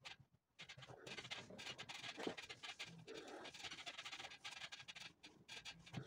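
Cloth rustling and rubbing as hands smooth and arrange a shirt on a padded ironing board: an irregular scratchy swishing that starts just under a second in and fades about five seconds in.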